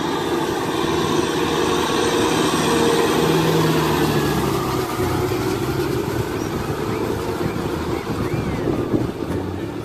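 Kubota tractor's diesel engine running steadily under load while tilling a muddy rice paddy.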